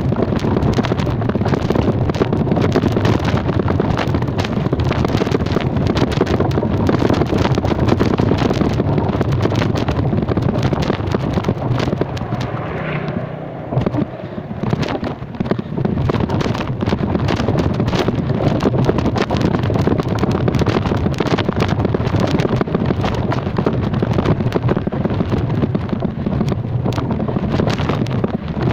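Wind buffeting the microphone while riding along on a vehicle, over a steady rumble of engine and road noise. The noise drops for a moment about halfway through, then comes back.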